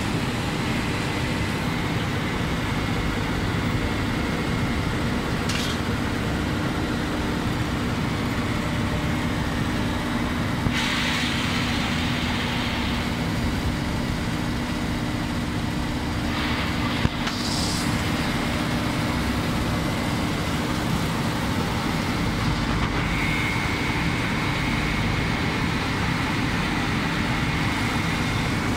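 Reject separator in a waste-paper pulping line running steadily, a continuous mechanical noise with a low hum. A short rush of hiss comes a little before the middle, and a single sharp knock soon after.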